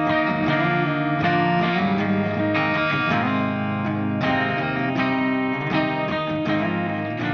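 Intro music led by a strummed guitar with effects on it, with chord changes about every second.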